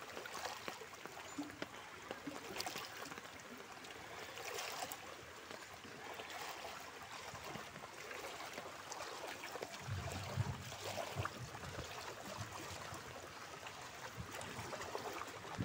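Muddy floodwater flowing and splashing as a steady rush, with many small ticks and spatters through it. A low rumble joins about ten seconds in.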